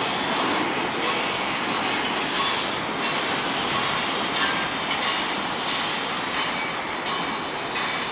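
Container freight train wagons rolling past on the rails: a steady rumble of wheels on track with a sharp click repeating about every two-thirds of a second as the wheels pass over the track.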